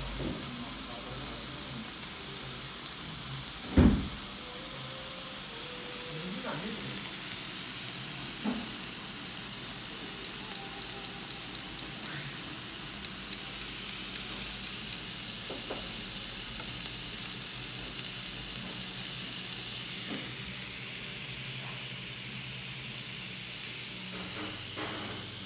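Meat sizzling on a tabletop barbecue grill, a steady hiss. A single loud thump comes about four seconds in, and two quick runs of about seven sharp clicks each come near the middle.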